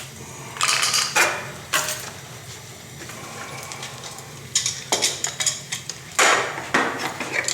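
PVC drain pipe and fittings clattering in bursts as they are handled and pushed together, about four separate bouts of knocking and rattling.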